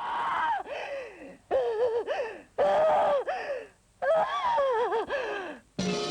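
A woman's voice crying out in distress: four high, wailing moans, each about a second long and falling in pitch at its end. Music comes in just before the end.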